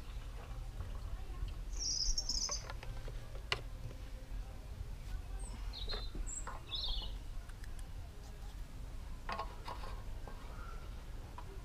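Garden birds chirping in short bursts, with a few light clicks and taps from hands working on a lawnmower's engine.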